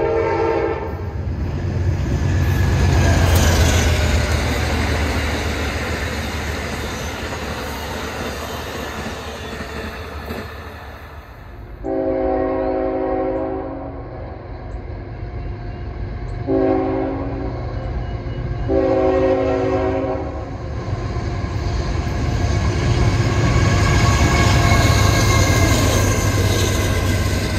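A passenger train's horn ending, then the train running past with a rumble that swells and fades. About twelve seconds in, a freight train's horn sounds a long blast, a short one and another long one as it approaches, then its two diesel locomotives and tank cars rumble past, loudest near the end.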